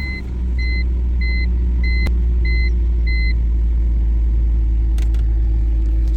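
BMW E46 330i's inline-six idling steadily just after starting, running without a vacuum-leak hiss now that the broken valve-cover bolt is replaced, which the owner takes as fixed. A beeping chime repeats about every two-thirds of a second over the first half, then stops.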